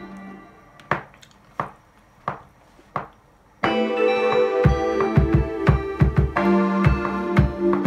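A hip-hop-style beat with keyboard chords over drum hits, playing back from music production software on a laptop. For the first three and a half seconds the chords drop out, leaving single drum hits about every 0.7 seconds. Then the full chords and beat come back in.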